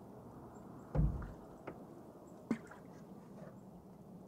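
Canoe paddle stroke: a low thud about a second in as the paddle works the water, then a couple of short, light knocks over a faint steady wash of water.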